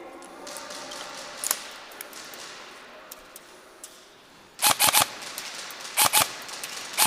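Airsoft automatic rifle firing short rapid bursts: one just past halfway, a shorter one about a second later, and another starting near the end, with a few faint pops before them.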